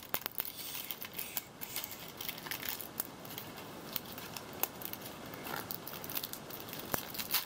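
Clear plastic toy packaging crinkling and crackling as it is peeled open by hand, with scattered small clicks.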